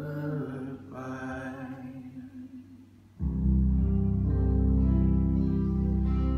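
Live band playing: a soft sung line over guitar, then about three seconds in the whole band comes in loudly on a held chord.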